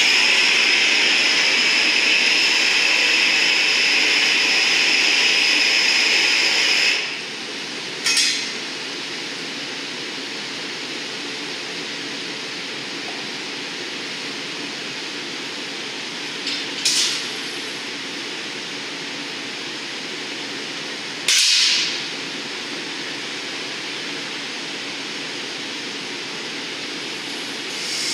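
Glassblower's hand torch hissing steadily for about seven seconds as it is played on the hot glass, then stops. After that, the steady rush of the furnace and glory hole burners, with three short hisses spread across the rest of the stretch.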